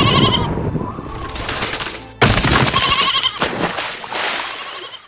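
A sheep bleating twice in long, harsh, wavering calls, the second starting just after two seconds in.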